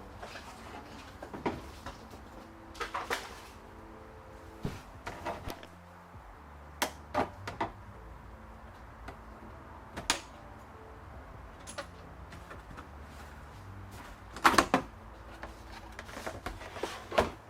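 Irregular clicks and knocks of interior trim fasteners being worked loose and pulled from a car body, with the loudest knocks about fourteen seconds in and again near the end.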